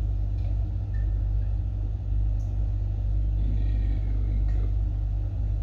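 A steady low rumble or hum runs throughout. Over it, faint light sounds of single cream being poured from a carton into a plastic jug on a kitchen scale.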